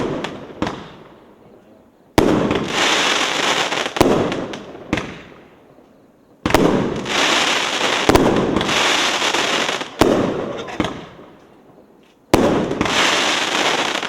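'Night Blues' firework going off shot after shot: about six sharp bangs a couple of seconds apart, each followed by a crackling hiss that fades over a second or two.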